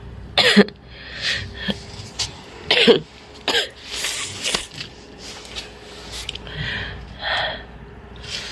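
A person coughing repeatedly, a string of short coughs with the loudest about half a second in and near three seconds in, and a couple more toward the end. It is the persistent cough of an illness that has lasted a week.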